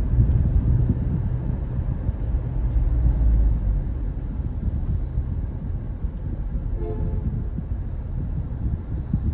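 Steady low rumble of a car on the move, heard from inside the cabin: engine and road noise, heavier in the first few seconds, with a brief faint tone about seven seconds in.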